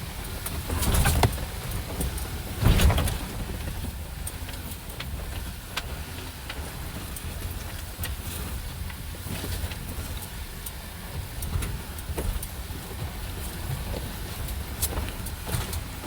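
Off-road vehicle driving over a rough trail: a steady low rumble with scattered clicks and knocks, the two loudest about one and three seconds in.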